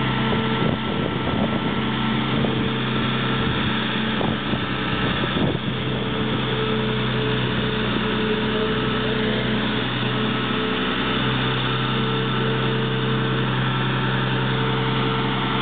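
Diesel power pack of a Goldhofer self-propelled modular transporter running steadily at a constant pitch, driving the hydraulics as the multi-axle platform creeps along carrying a 400-tonne transformer.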